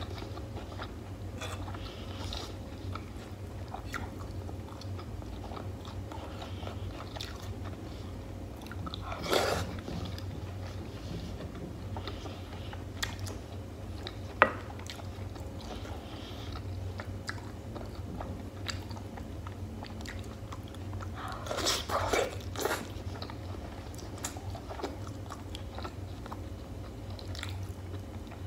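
Close-miked eating sounds: chewing and wet mouth noises of beef and tomato stew, with a wooden spoon scraping and clicking on the plate, over a steady low hum. One sharp click about halfway through, and louder chewing briefly about a third of the way in and again for over a second near three quarters of the way.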